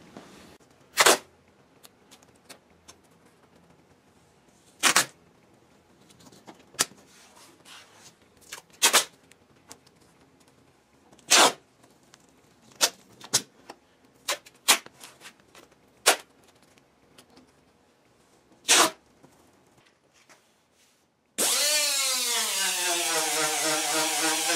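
Masking tape being pulled and torn in several short rips. About three seconds before the end, a small air-powered sanding disc starts up on the fender to break through the paint, its pitch falling and then holding steady as it runs.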